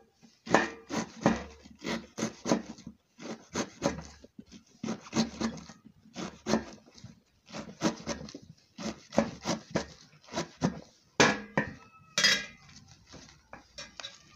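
Kitchen knife chopping a bundle of pumpkin leaves, the blade striking a metal tray in quick runs of sharp taps, easing off near the end.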